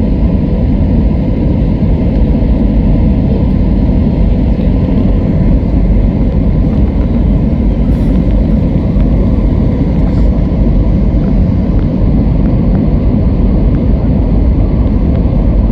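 Steady low rumble of engine and airflow noise inside the cabin of an Airbus A320-212 airliner, with a couple of faint ticks partway through.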